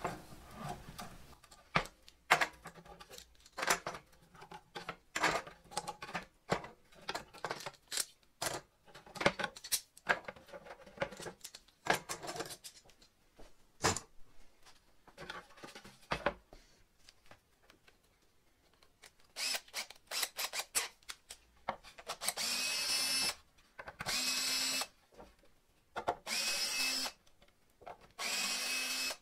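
Quick-release bar clamps being loosened and lifted off a plywood panel, a long series of clicks and knocks. Near the end a cordless drill whirs in four short bursts.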